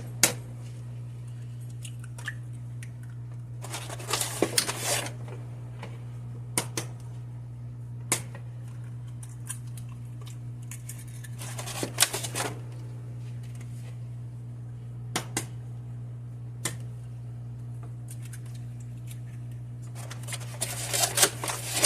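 Eggs being tapped on the rim of a mixing bowl and cracked open, three times about eight seconds apart, with scattered small clicks between. A steady low hum runs underneath.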